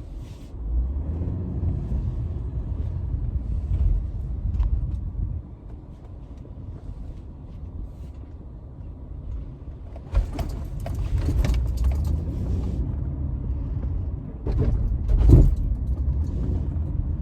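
Inside the cabin of a 2009 Cadillac CTS being driven: a low rumble of engine and road noise that swells, eases for a few seconds in the middle, then swells again, with a brief light rattle about two-thirds of the way in.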